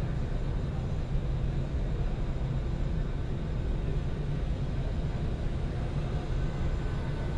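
Steady low rumble in a large hall, with a faint whine from electric RC airplane motors.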